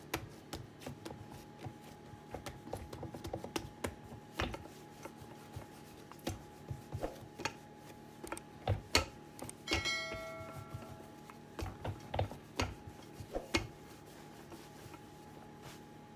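Wooden rolling pin rolling and knocking on a wooden pastry board while dough is rolled out: irregular light knocks and taps. About ten seconds in, a short ringing tone fades out.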